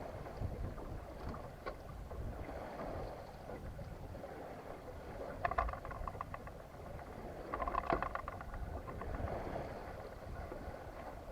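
Water lapping and gurgling along a small sailboat's hull as it moves under sail in light wind, over a steady low rumble. Two short bursts of rapid splashing come about five and a half and eight seconds in.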